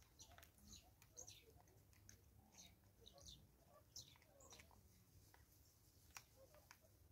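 Very faint crunching and clicking of a vervet monkey chewing birdseed, with a few sharper ticks and brief high chirps scattered through.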